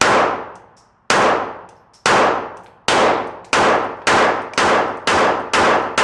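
Glock 17 Gen 4 MOS 9mm pistol fired ten times in quick succession, the gaps shrinking from about a second to about half a second. Each shot rings on in the reverberant indoor range.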